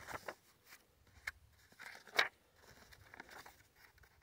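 Pages of a paperback book being turned and riffled by hand: faint paper rustles and small clicks, with the loudest rustle about two seconds in.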